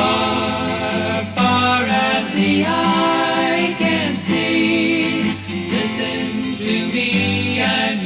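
Music: a song with plucked acoustic guitar and singing.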